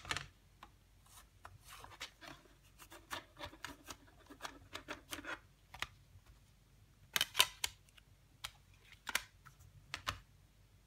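Plastic CD jewel case and paper booklet being handled by hand: a click at the start, a few seconds of quick rubbing and tapping, then the loudest cluster of sharp plastic clicks about seven seconds in, and two more single clicks near the end.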